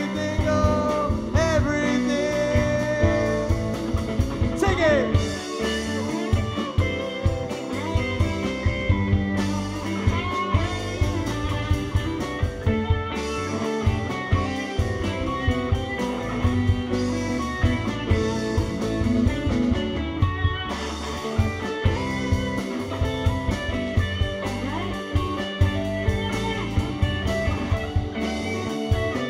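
Live rock band playing a bluesy jam: electric guitar notes bending up and down in pitch over a steady drum beat.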